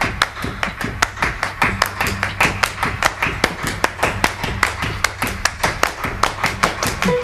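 Hand claps in a quick, fairly even run of sharp claps, several a second, over a steady low hum.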